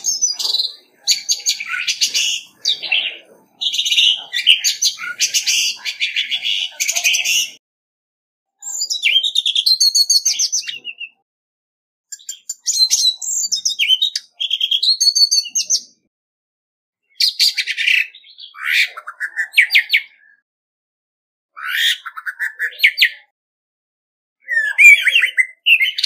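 Male orange-headed thrush singing its territorial challenge song, the kind used as a decoy call. It comes in repeated phrases of rich, varied whistles and quick notes, about six phrases with clean silences between them.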